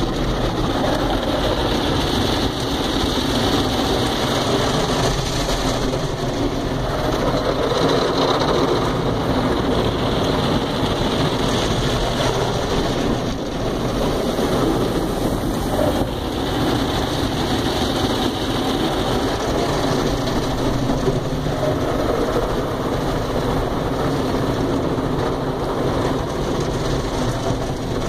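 Automatic car wash spraying water and soap over a car, heard from inside the cabin as a steady, loud rushing and drumming on the glass and body. Near the end the spinning cloth brushes reach the windshield.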